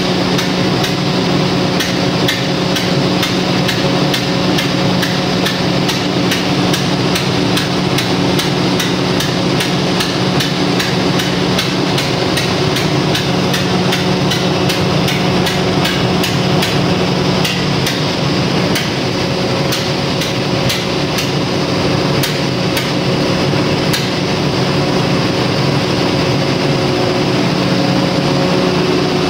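Perkins 4006 inline six-cylinder diesel generator engine running steadily, with a sharp, regular metallic knocking over it; the knock is taken as the sign of wrong injector timing.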